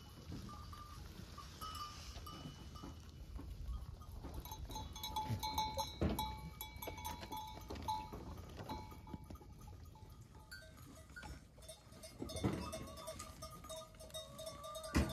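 Herd of goats milling about in a pen, with bells ringing in drawn-out tones and a few sharp knocks.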